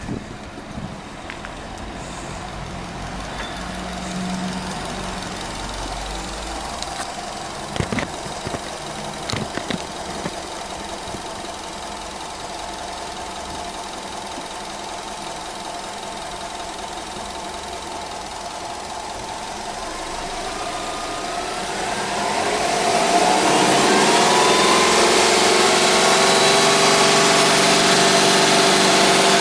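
Subaru Legacy 2.0 GT spec.B's turbocharged 2.0-litre flat-four idling, with a couple of sharp knocks about eight and nine seconds in. About twenty seconds in the revs rise, and the engine runs louder at a raised, held speed.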